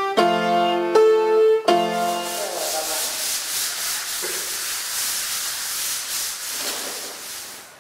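A few notes and chords played on an electronic keyboard, then, from about two and a half seconds in, the steady rasping hiss of wooden panels being sanded by hand in repeated strokes, fading near the end.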